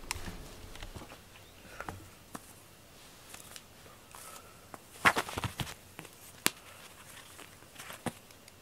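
Scattered light taps, rustles and clicks of a cat playing with a teaser-wand toy on a foam floor mat, with a quick cluster of sharper clicks about five seconds in.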